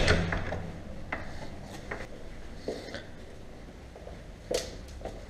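A hotel room door being opened: a few light clicks and knocks, the clearest about four and a half seconds in, with some rustling over a low steady hum.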